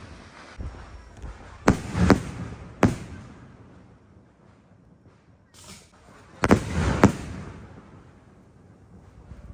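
Aerial firework shells bursting: about five sharp booms in two groups, three close together and then two more, each followed by a low rolling echo that dies away.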